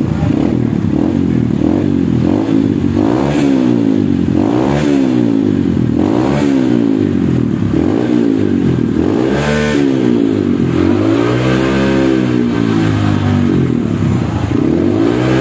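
Honda CRF motorcycle engine revved again and again through an aftermarket exhaust with a stainless header and aluminium muffler. Quick throttle blips, each rising and falling in pitch, come about one every second and a half, with a longer, higher rev about two-thirds of the way through.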